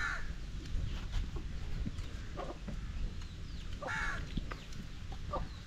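Chickens clucking, a short call every second or so, over a steady low rumble.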